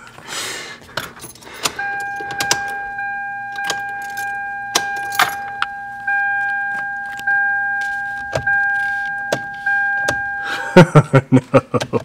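A 2001 Toyota Corolla's warning buzzer sounding a steady tone, briefly broken about every second, over scattered sharp clicks and keys jangling. The tone cuts off near the end and is followed by a quick run of loud clicks.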